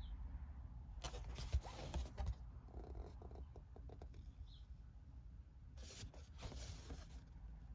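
Thick cardboard game boards being handled and slid against each other, in two short bursts of scraping rustle, one about a second in and one near the end, over a low steady hum.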